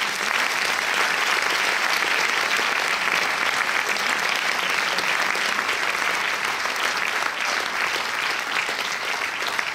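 Audience applauding steadily, the dense, even clatter of many hands clapping.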